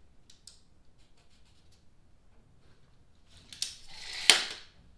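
A few faint ticks, then, about four seconds in, a steel tape measure's blade sliding back into its case with a rising rush that ends in a sharp snap as the hook hits the housing.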